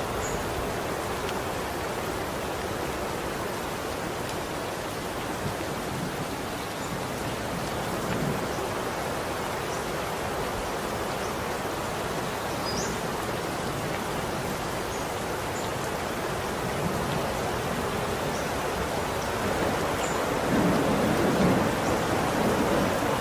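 Steady rain falling, an even hiss. A few faint, short, high chirps now and then, and a low rumble that swells near the end.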